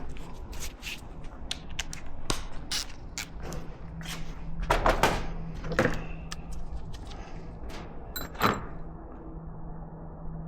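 Metal tools and motorcycle parts being handled: scattered clicks and clinks, a louder clank about five seconds in and a ringing metallic clink near eight and a half seconds, over a steady low hum.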